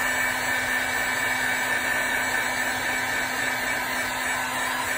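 Electric heat gun running steadily, a constant motor hum under the rush of hot air, as it shrinks heat-shrink tubing onto a heavy-gauge wire terminal.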